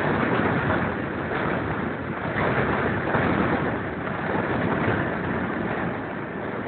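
Wind blowing across the microphone at an open carriage window, mixed with the running noise of a train hauled by steam locomotive No. 186, a steady rushing sound that swells and eases.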